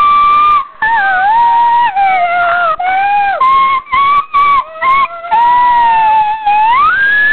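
A child's voice howling long, high, wavering notes without words, sliding up and down in pitch in loud stretches broken by short pauses for breath.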